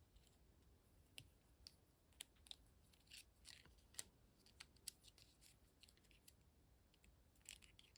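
Faint, scattered small clicks and light scrapes of plastic figure parts being handled and pushed together, with near silence between them.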